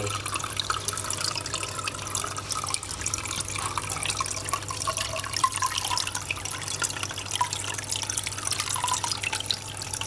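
Water sloshing and dripping as a small plastic cup holding a live fish is tipped onto a wet hand, many small splashes and drips, over a steady low hum.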